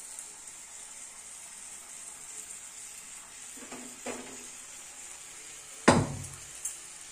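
Steel kitchenware clanking: two light metal clinks a little before four seconds in, then one loud knock with a short ring about six seconds in, over a faint steady high hiss.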